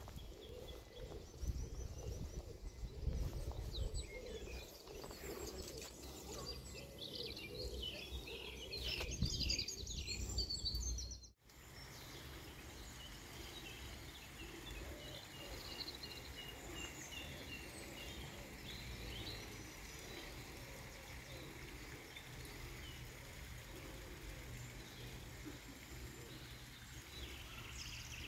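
Small birds chirping and singing in short repeated phrases over a steady low rumble. The sound cuts out for a moment about eleven seconds in, then goes on quieter with fewer calls.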